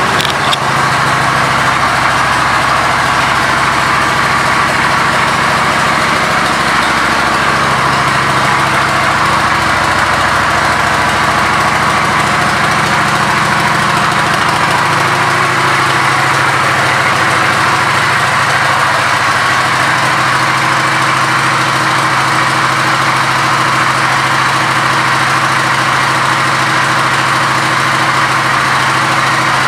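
Kawasaki Vulcan 900's V-twin engine idling steadily, its note shifting slightly a few times.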